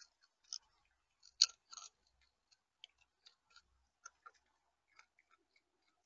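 A bird pecking at seed in a camera bird feeder, close to the microphone: irregular sharp clicks and taps, two or three a second, the loudest about one and a half seconds in.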